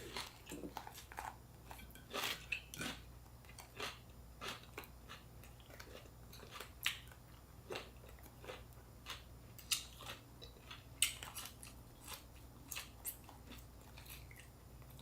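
Close-up chewing and biting of crisp fresh food, such as raw vegetables in fresh spring rolls: irregular crunches and mouth clicks, one or two a second, over a faint low hum.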